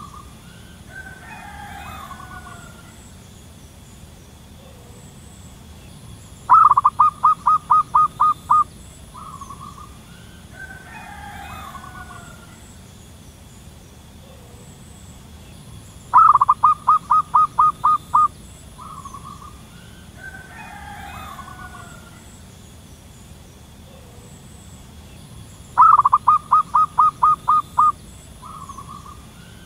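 Zebra dove calling: a fast run of about nine clipped notes followed by one short note, repeated three times about ten seconds apart. Between the runs comes a quieter, rougher call with several tones.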